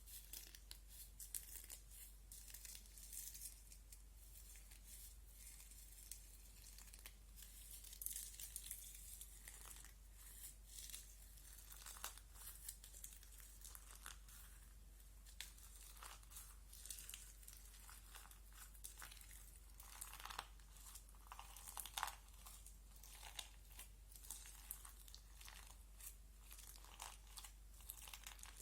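Crunchy slime being handled, giving a dense, irregular run of faint, high-pitched crackles and small pops.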